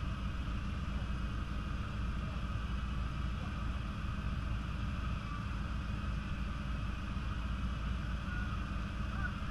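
Small-engine mini dragsters idling at the starting line: a steady low engine rumble that holds unchanged.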